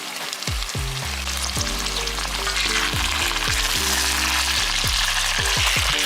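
Boneless mutton pieces sizzling in hot oil with sliced onions in a pan as they are stir-fried. The sizzle gets louder about two and a half seconds in.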